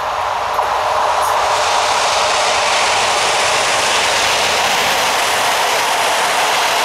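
EP07 electric locomotive and its PKP Intercity coaches passing close by: a steady rush of wheels on rail that swells over about the first second, then holds loud as the coaches roll past.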